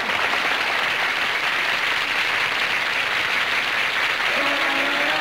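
Studio audience applauding steadily. About four seconds in, the song's instrumental introduction begins underneath the applause.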